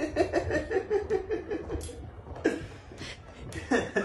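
A person laughing in quick, high-pitched, evenly repeated bursts for about the first two seconds, then quieter, with a few short sharp sounds near the end.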